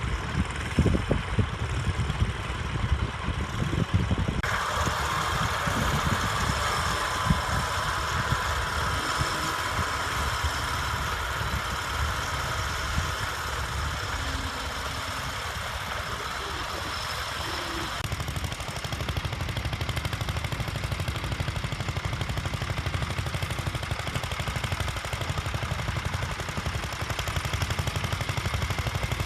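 Vintage tractor engines running with an even, rapid low beat of firing strokes. The mix of engine sound changes abruptly about four seconds in and again around eighteen seconds.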